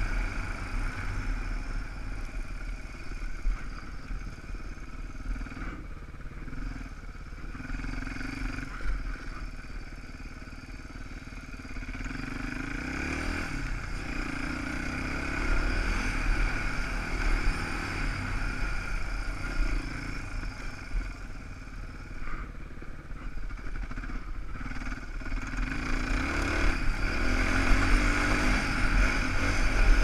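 Dirt bike engine running while ridden, the revs dropping off and picking up again several times, loudest near the end.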